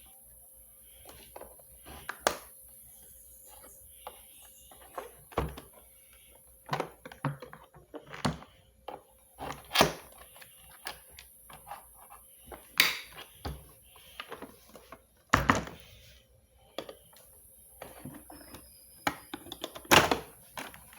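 Irregular clicks, taps and knocks of hard parts and tools being handled while a Miele vacuum cleaner is worked on, with a few sharper thunks, the loudest about fifteen and twenty seconds in.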